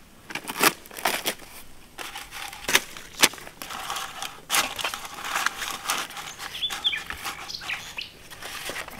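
Leaves being handled and laid in place, crackling and crinkling in irregular sharp snaps.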